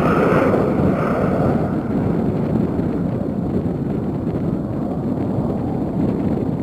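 F-16 fighter jet's turbofan engine noise, a loud deep rush that eases slightly over the first two seconds and then holds steady.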